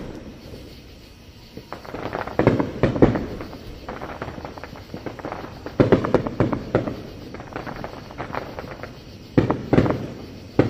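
Fireworks display: aerial shells bursting in three clusters of sharp bangs and rapid crackling, about two and a half, six and nine and a half seconds in.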